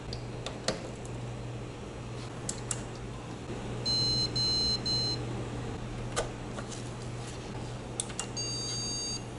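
Motherboard speaker on a PC that will not boot, sounding a POST beep code: three short, high-pitched beeps about four seconds in, then the beeps start again near the end. A steady low hum runs underneath, with a few sharp handling clicks.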